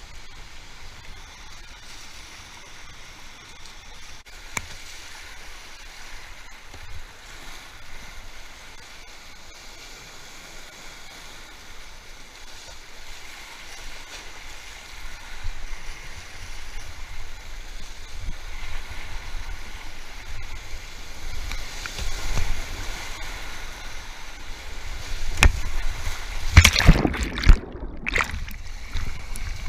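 Rushing whitewater of a mountain river rapid, heard from just above the water surface, growing louder over the second half. Near the end come heavy splashes, and the sound goes briefly muffled as the water closes over the microphone.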